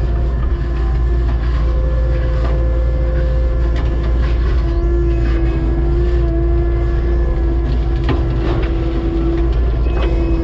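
Kubota SVL90-2 compact track loader's diesel engine running steadily under load, with a steady whine that grows stronger in the middle and scattered knocks and clanks as it works gravel.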